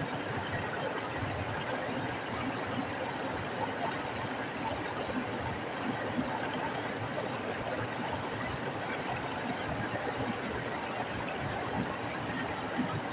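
A stream flowing over rocks, a steady, even rush of water.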